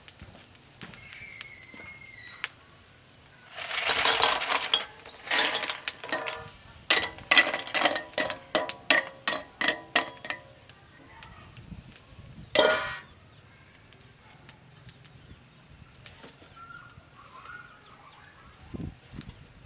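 Field snails tumbling into an iron wok, their shells clattering and clinking against the metal in a run of sharp knocks. A little past halfway, a steel lid comes down on the wok with one loud, ringing clang.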